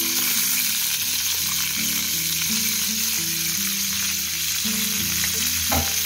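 Diced bacon sizzling as it fries in hot melted margarine in a frying pan, a steady hiss. A short knock sounds near the end.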